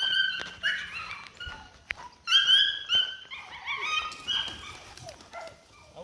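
Pointing bird dog whining and yipping in a string of high-pitched drawn-out notes, loudest a couple of seconds in.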